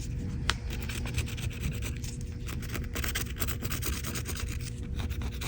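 Rapid, irregular scrubbing and rubbing on a dirty iPhone, working at oily grime that will not come off.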